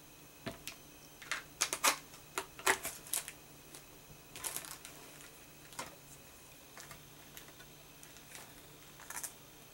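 Irregular light taps and clicks, a quick cluster in the first three seconds and a few more later: an ink pad dabbed onto a clear stamp and the plastic stamping platform lid being handled and closed.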